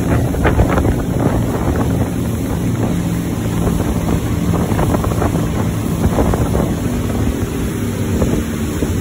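Speedboat engine running steadily under way, a low even hum, with wind buffeting the microphone and water rushing past the hull.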